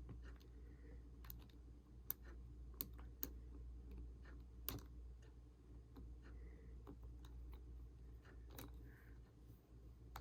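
Faint, irregular small clicks and taps of a P2 pentalobe screwdriver working a screw into an iPhone 6, over a low steady hum.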